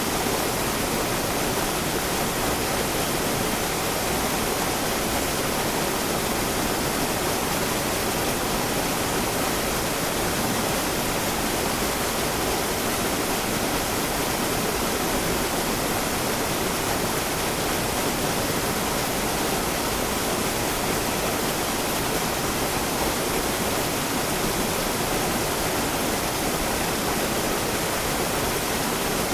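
River water flowing in a continuous natural current: a steady, even rush with no breaks.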